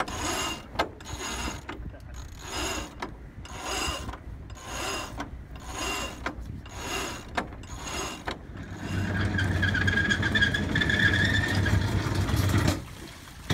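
Sailboat winch being worked, its ratchet clicking in regular strokes about every half second or so. For the last four seconds this gives way to a steady low hum with a whine over it, which cuts off abruptly just before the end.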